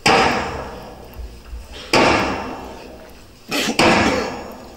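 Davul, the large double-headed Turkish drum, struck in slow single beats: one at the start, another about two seconds in, then two quick beats near the end, each ringing out and fading in the hall. It is the town crier's drum calling the people to attention.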